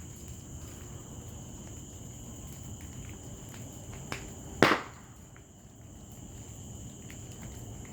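Crickets chirping steadily with a high, even tone. A little over halfway through, a faint crack is followed about half a second later by a single sharp, loud firecracker bang.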